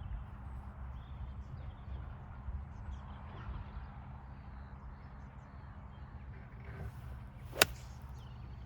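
A golf iron striking the ball once, a single sharp click about three-quarters of the way through, over a steady low rumble.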